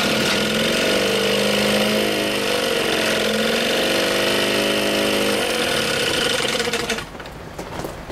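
1963 Johnson 5 1/2 hp two-cylinder two-stroke outboard running, its engine speed rising and falling as the throttle is worked, then dropping back about seven seconds in. It is running pretty good with about 85 psi compression on both cylinders.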